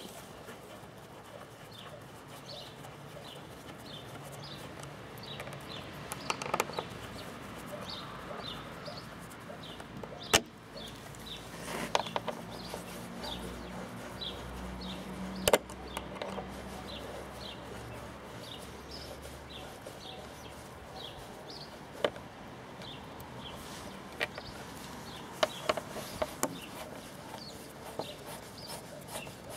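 Occasional sharp clicks and small rattles of a screwdriver working the metal windscreen screws and washers on a Honda CBF125's plastic fairing. Behind them, a bird chirps over and over in short, high notes.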